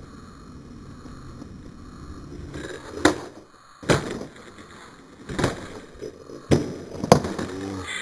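Skateboard wheels rolling on concrete, then a sharp clack about three seconds in as the board meets the concrete ledge. This is followed by several more sharp clacks and clatters as the board comes off the ledge and lands upside down on the ground.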